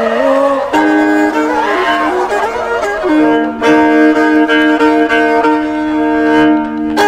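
Violin bowed in an interlude between verses of Chakma genkhuli ballad singing: long held notes that step from pitch to pitch over a steady lower note. The last of a sung phrase fades in the first second.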